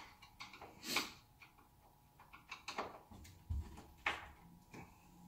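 A screwdriver wedged in a kitchen cabinet door hinge being levered to bend the hinge and realign the door: scattered metal clicks and knocks, a louder scrape about a second in and a dull thump about three and a half seconds in.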